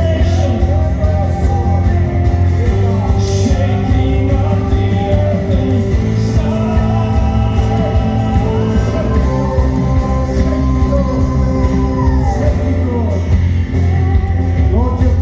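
Worship music with sustained chords over a steady bass, and a voice singing wordlessly.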